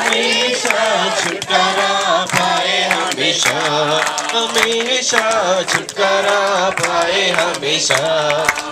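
A congregation singing a Hindi Christian worship song together, with hands clapping along.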